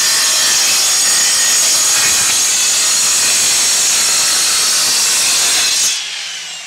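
Handheld circular saw with a diamond blade cutting through a Boral Cedar Lite concrete roof tile, loud and steady. About six seconds in, the cut ends and the blade winds down with a falling whine.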